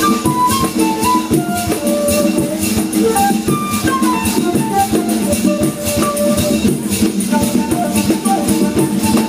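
Live instrumental baião played by a jazz quintet: a single high melody line of short stepping notes over a busy percussion groove with shaker strokes, drums and bass.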